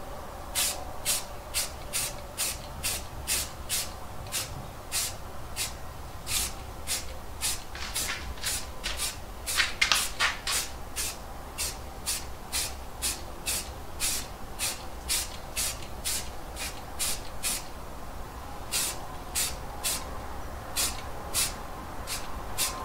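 Aerosol can of Rust-Oleum self-etching primer spraying in short hissing bursts, about two a second, with one longer spray about ten seconds in and a brief pause later on. These are light primer coats going onto an aluminum press frame.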